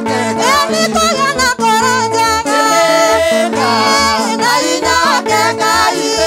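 A Kikuyu gospel (kigooco) song: a woman's lead voice sings over a band, with a bass line stepping between notes in a steady rhythm, and guitar and drums.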